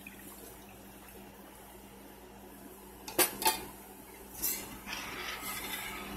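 Metal spoon stirring a thickened sauce in a stainless steel pot. After about three quiet seconds it clinks sharply against the pot twice, knocks once more about a second later, then scrapes and sloshes through the sauce.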